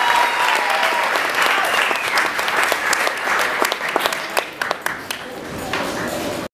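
Audience applauding after a stage performance, dense at first and thinning to scattered individual claps from about four seconds in. It cuts off suddenly at the end.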